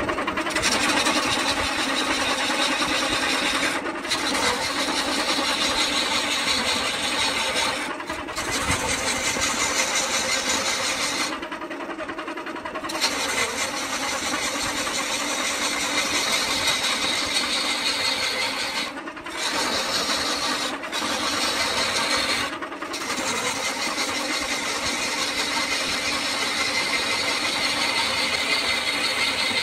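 Belt-driven wood lathe spinning a coconut palm log while a long gouge cuts into it: a steady rough cutting noise over the lathe's hum. The cutting noise breaks off for a moment about six times, longest about 12 seconds in.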